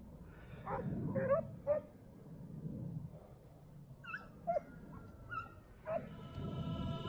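Pack of Segugio Italiano scent hounds giving tongue on a hare's trail: short, high yelping cries, a quick run of them about a second in and more scattered ones later. Music comes in near the end.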